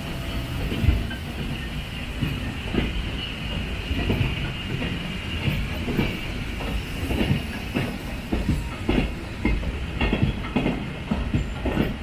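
Train rolling along the track, wheels knocking irregularly over the rails, over a steady hiss.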